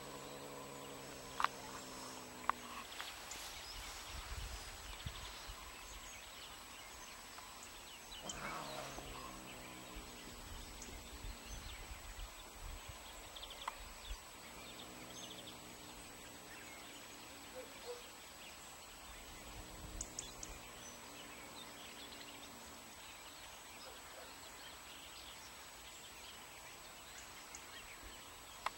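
Tabby cats in a standoff, giving four long, low, drawn-out growling yowls, each lasting two to three seconds. This is the threat call of cats challenging each other. There are two sharp clicks in the first few seconds.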